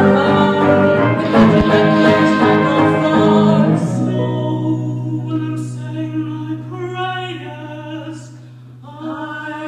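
Live stage music: a woman singing over a small band. About four seconds in, the band drops away to a single held low note beneath her voice, which fades near the end before the band comes back in.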